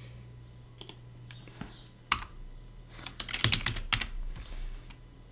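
Computer keyboard typing: irregular keystrokes tapping out a terminal command, with a quick run of keys about three and a half seconds in, over a low steady hum.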